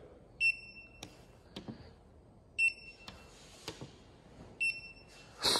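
Handheld digital paint-thickness gauge beeping three times, about two seconds apart: each short high beep marks a reading taken as the probe is pressed on the painted panel.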